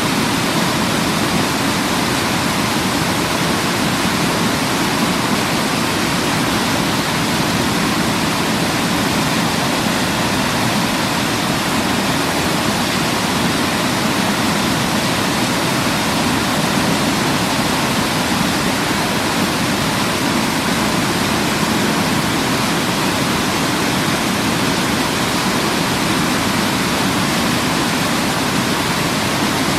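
Waterfall rushing steadily, an even, constant wash of falling water with no changes.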